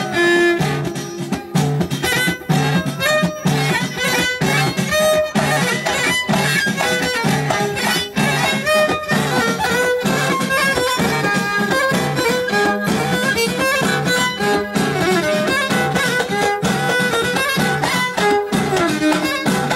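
Live Amazigh folk music: a violin playing a melody over a steady beat of hand-struck frame drums.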